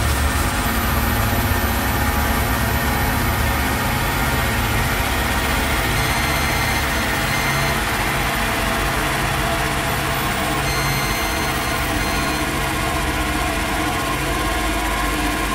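Live electronic noise-drone music: a dense, steady wall of hiss over a deep rumbling drone, with faint high steady tones fading in and out.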